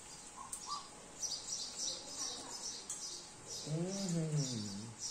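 Small birds chirping, short high notes repeated about twice a second, with one brief hummed voice sound near four seconds in.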